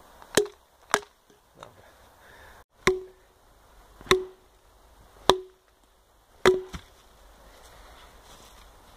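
Small plastic-handled hatchet chopping wood into small pieces: six sharp strikes, each with a short ringing note, the later ones coming about a second apart.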